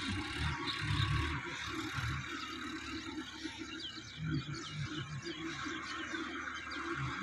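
Sonalika DI-50 RX diesel tractor working a flooded paddy at a distance, its engine rumbling unevenly and swelling a couple of times. Birds chirp several times about halfway through.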